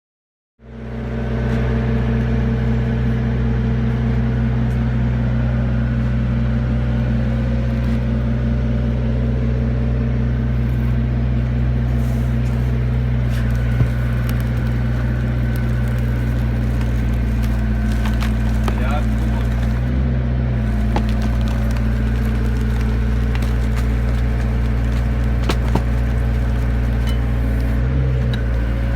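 Hydraulic power pack of a rock splitter running steadily with an even engine-like hum, starting abruptly about half a second in. A single sharp click sounds about fourteen seconds in.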